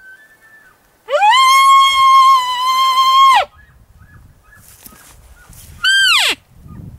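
Elk calls: a long bugle that rises, then holds one steady whistling pitch for about two seconds before breaking off. Near the end comes a short, steeply falling mew.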